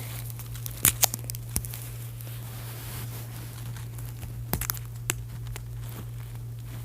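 A few sharp clicks and faint rustling from fingers working at a doll's small plastic hair restraint, over a steady low hum.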